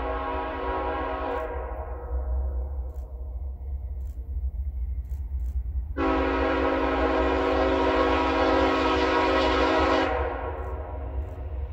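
Air horn of an approaching diesel locomotive, CN 2452, a Dash 8 cowl unit, sounding a multi-note chord: the end of one blast dies away in the first second or so, then one long, steady blast starts about six seconds in and lasts about four seconds. A low rumble runs underneath.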